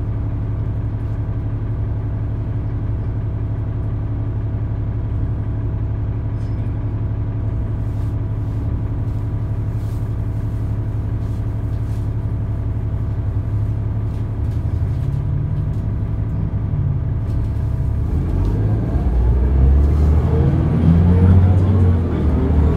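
Cummins ISL diesel engine of a New Flyer D40LF transit bus idling steadily, heard from inside the cabin. In the last few seconds it revs up as the bus pulls away, its pitch climbing and getting louder.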